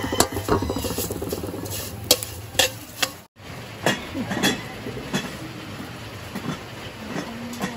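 Metal spatula scraping and stirring sesame seeds that are dry-roasting in a metal wok, in quick irregular scrapes and clinks. It cuts off suddenly about three seconds in, and only scattered faint clicks follow.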